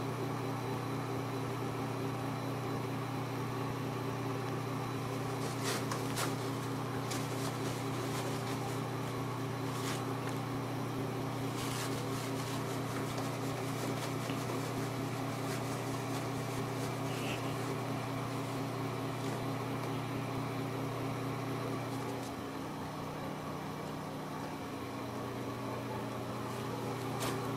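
A steady low machine hum made of several fixed tones, shifting briefly in pitch for a few seconds near the end, with a few faint clicks over it.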